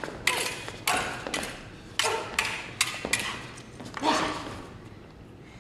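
Stage-combat steel blades clashing in a quick series of sharp strikes, each with a brief ring, about nine in the first four seconds; the strikes stop after that.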